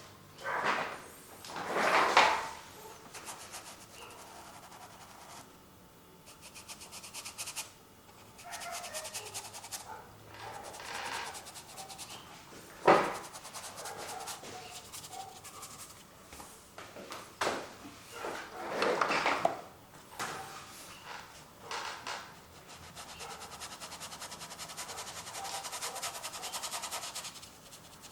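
Painting tools working acrylic paint on a canvas: irregular bursts of rubbing and scraping strokes, with a single sharp knock about halfway through.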